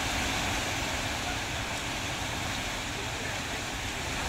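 Steady rushing of a flash flood: muddy water carrying rocks and debris down a mountain stream channel.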